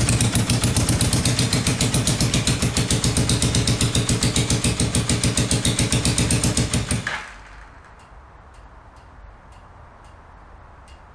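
A 1979 Honda CB400T's parallel-twin engine idling with an even pulsing beat, switched off about seven seconds in. After it stops, only faint, regular ticks remain.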